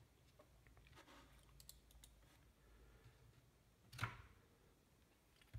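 Near silence: faint room hum, with a few soft ticks and one short, sharp click about four seconds in.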